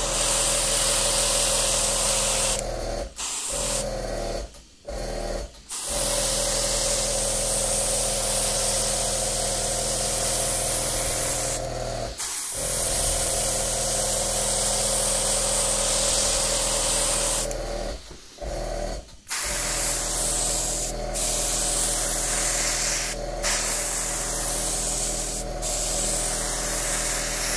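Airbrush spraying paint in long hisses, broken by a few short pauses, over the steady hum of a small air compressor.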